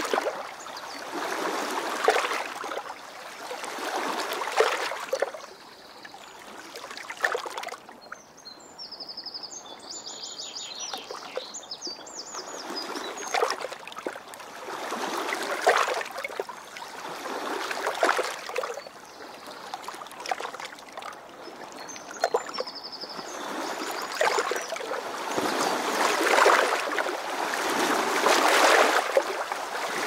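River water washing in and lapping in swells, one surge every two to three seconds. Birds chirp over it in short runs of high notes, about a third of the way in and again near the end.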